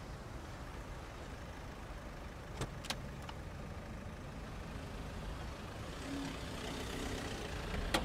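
Car engine running steadily with street traffic. A few short clicks come about three seconds in, and a passing car grows louder near the end, closing with a sharp click.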